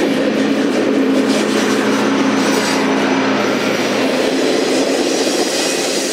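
Excursion train's passenger cars rolling past on the rails, a loud steady rumble of wheels with a humming tone through it. The noise begins to ease near the end as the last car goes by.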